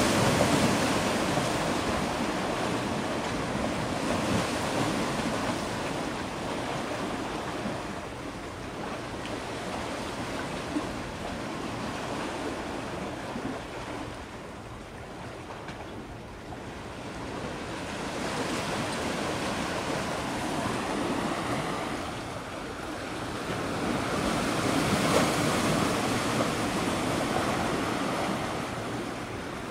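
Wind and sea waves: a steady rushing noise that swells and eases every several seconds.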